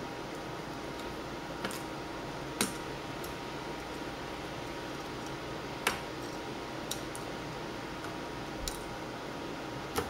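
A few light clicks and taps, about five, spread over a steady low hiss: a laptop motherboard being wiggled free of its plastic base.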